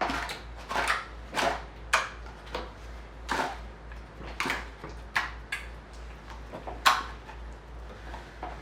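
Thick, putty-like glitter slime being squished and pressed by hand, giving irregular clicky pops, roughly two a second.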